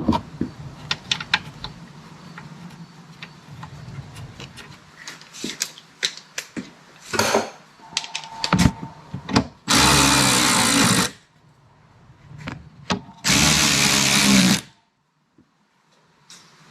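Cordless power tool running in two bursts of about a second and a half each, spinning fasteners, after several seconds of light clicks and handling of tools and parts.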